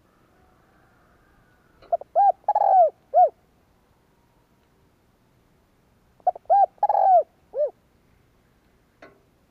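Spotted dove cooing: two phrases of four or five arched coos each, about four seconds apart. It is the male's territorial call, used here as a decoy call to rouse wild doves.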